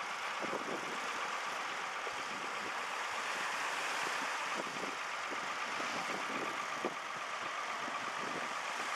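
Farm tractor engine idling steadily under a wash of surf and wind noise on the microphone.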